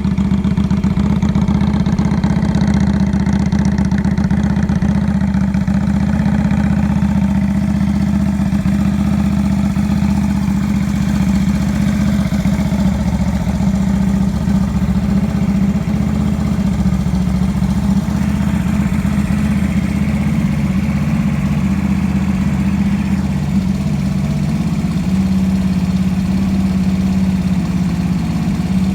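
Yamaha Drag Star 250's air-cooled V-twin idling steadily through an aftermarket American Dreams gatling-style muffler, with no abnormal noises.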